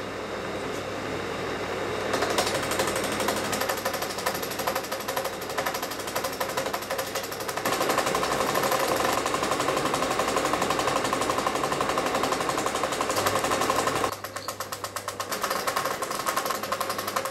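Film projector running: a fast, steady mechanical clatter over a low hum. About two-thirds of the way through it drops quieter and the rapid clicking stands out more.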